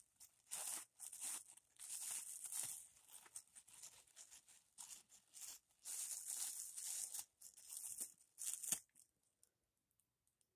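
Thin white plastic bag crinkling and rustling in irregular bursts as a cat mouths and shifts on it, stopping about three-quarters of the way through.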